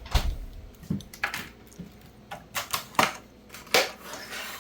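Irregular sharp clicks and knocks, about a dozen, as drink containers are handled while water is prepared. The loudest knocks come near the start, around three seconds in and just before four seconds.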